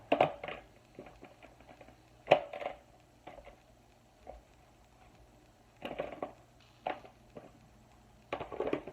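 Small plastic fidget toys and their cardboard box being handled and packed away: irregular rustles and clatters, the loudest about two seconds in and a quick run of them near the end.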